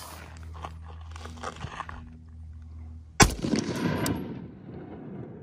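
A single shot from a Zastava M76 rifle in 8mm Mauser about three seconds in, followed by a rolling echo that dies away over about a second. Faint small clicks come before it.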